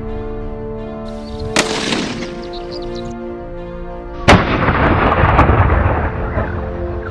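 Two rifle shots about three seconds apart over background music. The second shot is the louder one and is followed by a long rolling echo.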